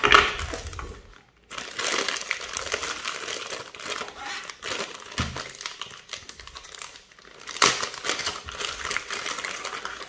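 Clear plastic packaging bag crinkling and rustling as it is handled and opened, in irregular bursts with a short lull about a second in and a louder patch about two-thirds of the way through.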